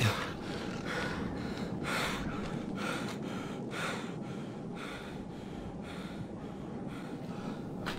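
A man breathing hard in quick, gasping breaths, about one or two a second, over a steady background hiss.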